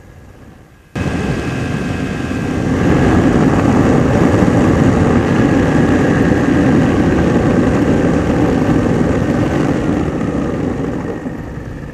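Ultralight airplane in flight: its Hirth two-stroke engine and propeller with rushing air, loud and steady. It starts abruptly about a second in, swells a couple of seconds later and eases near the end.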